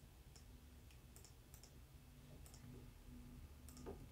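Faint, scattered clicks of a computer mouse and keyboard, several separate clicks over near silence.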